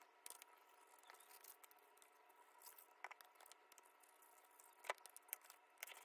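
Near silence with scattered faint taps and clicks from paper and craft tools being handled, and a sharper click about five seconds in.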